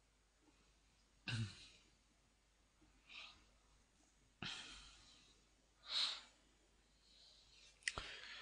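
A person's faint breathing and sighs close to a microphone: about five separate short breaths, with a small sharp click near the end.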